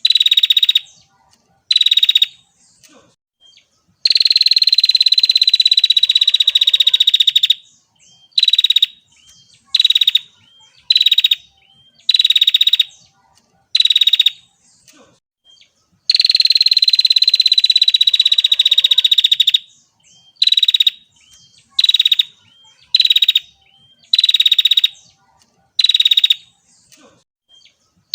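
Female prinia (prenjak) calling: a rapid, buzzy trill given in short bursts of under a second with brief gaps between them. Twice, about four seconds in and again about sixteen seconds in, it runs into a long trill of three to four seconds.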